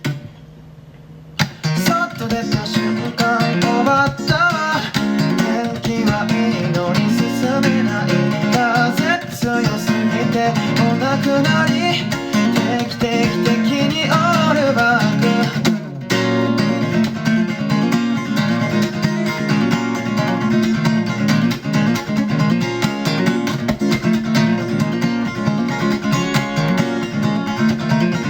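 Acoustic guitar strummed and picked, starting about a second and a half in, with a brief break near sixteen seconds before the playing goes on.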